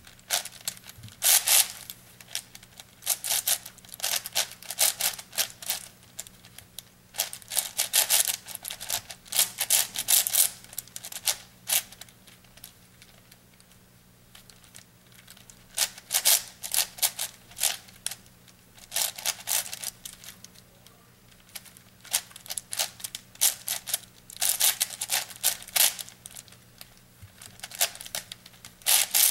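Plastic 8x8 puzzle cube being turned by hand: rapid clacking clicks of its layers in bursts of a few seconds, with short pauses between. A faint steady low hum runs underneath.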